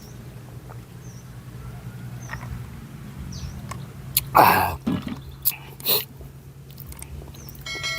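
A person eating noodle soup: soft mouth and bowl noises over a steady low hum, then a loud breathy burst, a slurp or sharp sniff, about four seconds in and a shorter one about six seconds in. Faint, short high chirps recur every second or two.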